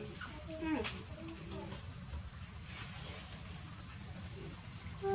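Steady, high-pitched insect chorus, like crickets, over a low rumbling background, with a few short faint cries in the first second.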